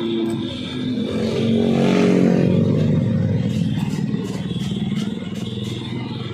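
A passing motor vehicle: its engine swells to its loudest about two seconds in, then fades away as its pitch drops.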